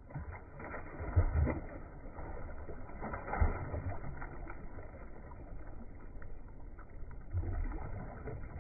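Released catfish splashing at the water surface as it dives, with a couple of louder splashes about a second in and again around three and a half seconds, followed by water sloshing; the audio sounds dull and muffled.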